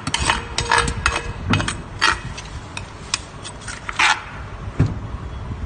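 A spoon knocking and scraping against the inside of a mortar as papaya salad is mixed, in irregular clatters with a short ring on the louder strikes.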